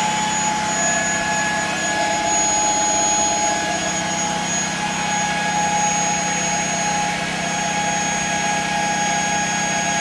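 Small Tesla turbine with a 3-inch rotor spinning at high speed, loaded by a three-phase generator: a steady high whine made of several held tones over an even rushing hiss from the driving gas.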